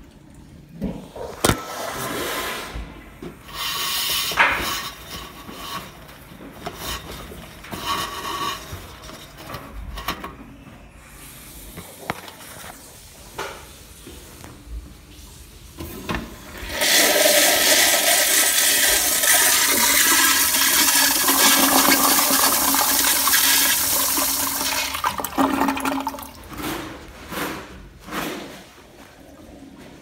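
A toilet flushing in a small tiled restroom. Water swirls and gurgles in the bowl in the first few seconds. A little past the middle comes a loud rush of water lasting about eight seconds, which then breaks into separate gurgles and splashes as the bowl settles.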